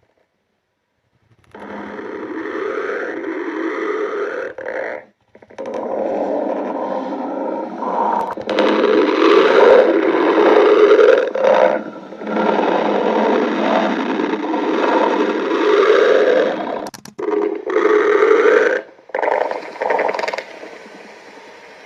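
Human stomach growling: long, loud gurgling rumbles that start about a second and a half in and go on with a few short breaks.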